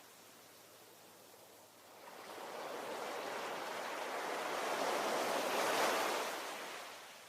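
Ocean waves breaking on a shore: quiet wash for about two seconds, then one wave swelling into a surge that peaks near the end and falls away.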